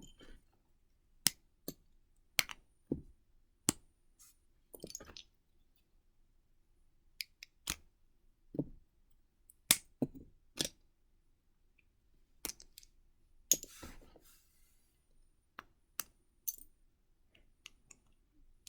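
Plastic Lego bricks being pulled apart and set down: scattered sharp clicks and clacks at irregular intervals, with a short patch of rattling pieces about two thirds of the way through.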